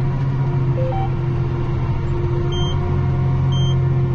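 John Deere 8270R tractor engine running steadily, with a few short electronic beeps: two low blips about a second in and two higher beeps about a second apart in the second half.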